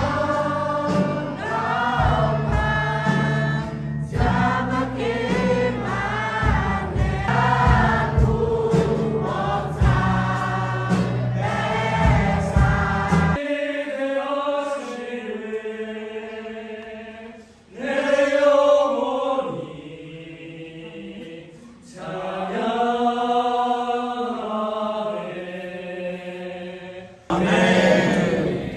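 A choir of voices singing a hymn, backed by a low instrumental accompaniment for the first half, then voices alone, with sudden breaks in the singing twice in the second half.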